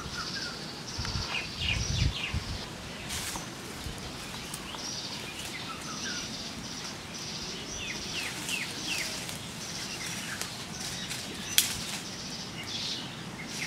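Birds chirping and calling all around, many short falling chirps over a repeating buzzy note. A few low thuds about two seconds in, fitting clay pots and bricks being handled, and one sharp click near the end.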